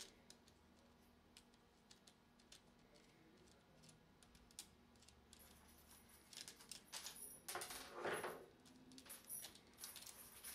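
Faint metal clicks as a nut driver turns the lock nut off a Columbia automatic drywall taper head. A brief burst of metal rattling and scraping comes about three-quarters of the way through as the chain guard and roller chain are handled, with scattered clicks after it.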